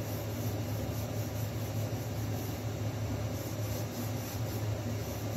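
Steady low hum with hiss: constant background machine noise in a small room.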